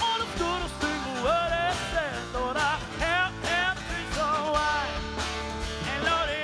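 Three-piece acoustic band playing live: strummed acoustic guitar under a sung melody line that bends and wavers in pitch.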